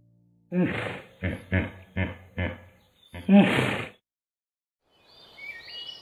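Hippopotamus honking: a series of six grunting calls, a longer one, four short ones and a longer last one, ending after about four seconds.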